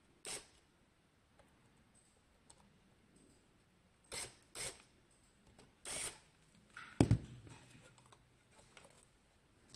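Parts of a NucBox4 mini PC being handled: a few short clicks and scrapes, then a louder knock about seven seconds in, as of the case or a part being set down.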